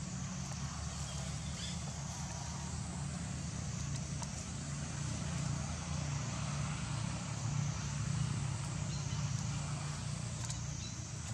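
Steady low mechanical hum under an even outdoor hiss, with a few faint clicks.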